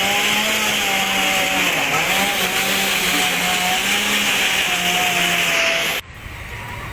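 Chainsaw running steadily, cutting wood, with its pitch wavering as it works. The sound cuts off suddenly about six seconds in, leaving a quieter low rumble.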